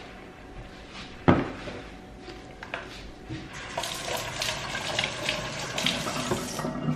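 A sharp knock about a second in, then a kitchen tap running for about three seconds from halfway through, stopping shortly before the end.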